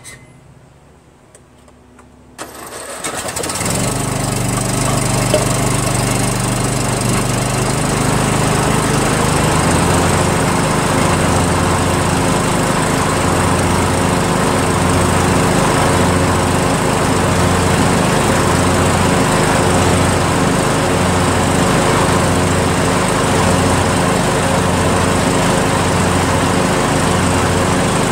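John Deere L100 lawn tractor's Briggs & Stratton engine starting about two and a half seconds in, catching within about a second, then running steadily. After several seconds a low, even throb about once a second sets in under the engine sound.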